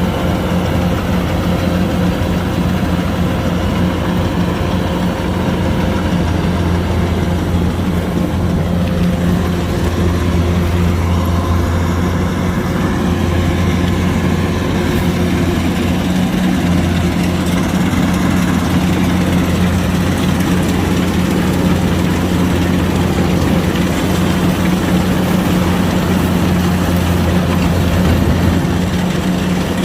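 Kubota DC105X combine harvester's diesel engine running steadily, an even low drone with no change in speed.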